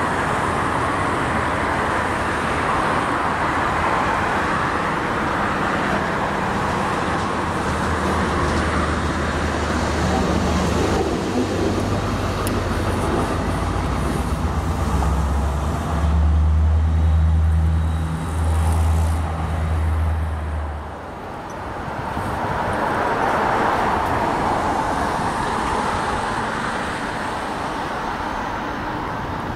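Diesel shunting locomotive's engine running with a low, steady hum that swells in the middle and stops fairly suddenly about two-thirds of the way through, over constant traffic and yard noise.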